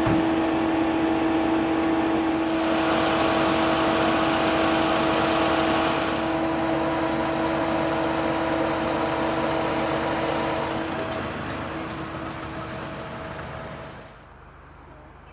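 Vehicle engine running at idle with a steady humming tone over a hiss. The hiss swells between about three and six seconds in, and the sound fades down near the end.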